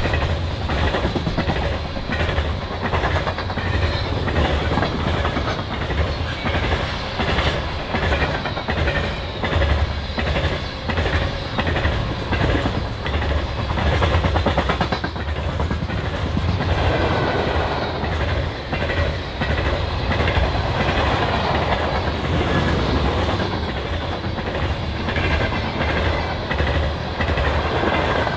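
Covered hopper cars of a long grain train rolling past at speed: a steady rumble with a fast, even clickety-clack of wheels over the rail joints. The sound grows harsher for a few seconds past the middle.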